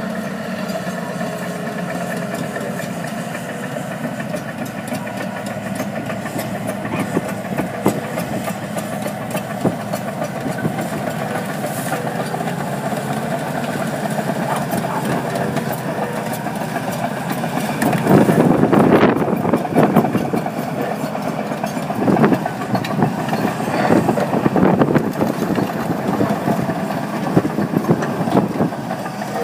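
Crawler dozer's diesel engine running steadily under load as it tows a large disc plough through dry ground. Louder rough bursts of noise come and go during the second half.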